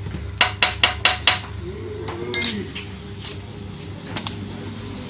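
Metal tools striking metal: a quick run of about five sharp taps, then a louder clank about two seconds in that rings briefly, and a few lighter taps later, over a steady low hum.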